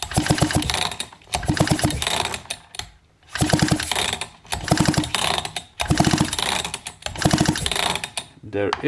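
Husqvarna 266/268 chainsaw cranked by its recoil starter, about seven quick pulls in a row, each a short ratcheting whir of the engine turning over, for a spark test after a rebuild.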